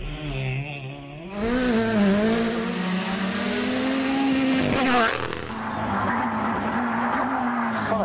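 Toyota GR Yaris Rally1 rally cars' 1.6-litre turbocharged four-cylinder engines driven hard on a stage, the pitch rising and falling with gear changes and lifts. There is a sharp crack about five seconds in.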